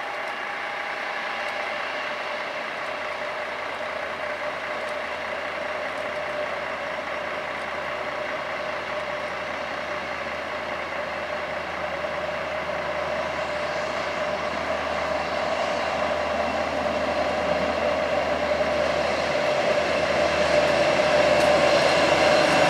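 NSB Di 4 diesel-electric locomotive running as it hauls a passenger train into a station, a steady engine drone with a held hum that grows steadily louder through the second half as the train approaches.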